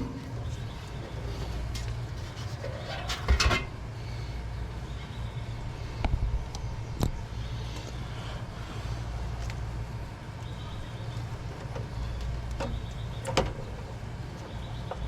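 Steady low hum with a few scattered clicks and clunks of hands and tools working on an air-conditioner condensing unit, the loudest clunk about three seconds in.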